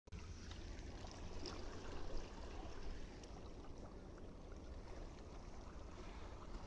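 Calm sea water lapping and trickling over shoreline rocks, with scattered small splashes over a low steady rumble.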